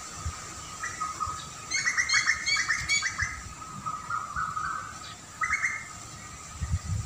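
Birds chirping outdoors: a quick burst of sharp, repeated chirps about two seconds in, and a shorter burst a little after five seconds, over a steady faint background tone.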